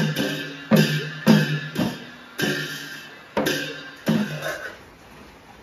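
Assamese dhol beaten with a stick, with a pair of hand cymbals struck together in time: single strokes that slow and spread further apart, each left to ring, the last about four seconds in as the playing dies away.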